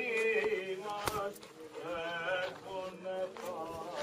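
Greek Orthodox Byzantine chanting at a chapel liturgy: a singing voice holding long, drawn-out notes that bend slowly in pitch.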